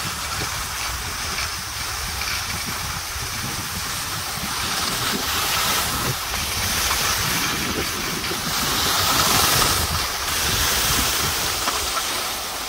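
Skis hissing and scraping over firm groomed snow during a downhill run, with wind rumbling on the microphone. The noise is steady and swells a little about three quarters of the way through.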